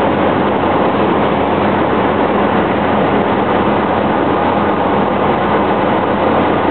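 Steady turboprop engine and propeller noise of a Cessna Caravan amphibian's PT6A engine, heard from inside the cabin as a dense, even noise with a steady low hum underneath.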